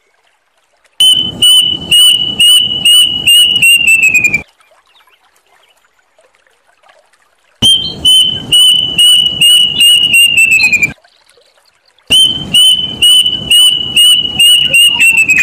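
Plaintive cuckoo singing three phrases. Each is a run of loud whistled notes that speeds up and falls in pitch at the end, with short pauses between phrases.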